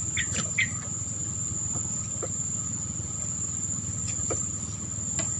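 Insects singing in one steady high-pitched drone over a low rumble, with a couple of short chirps about half a second in and a brief click a little after four seconds.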